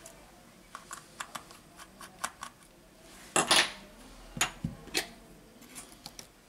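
Small repair tools clicking and tapping against a smartphone's frame and tiny screws: a run of light, separate metallic clicks, with a louder short clatter about three and a half seconds in as the phone is handled.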